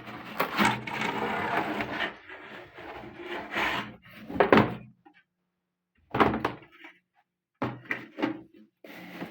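Rustling and short knocks of a plastic-framed wall clock being handled and taken out of its packaging, with a dense stretch of rustling at first and then separate bumps.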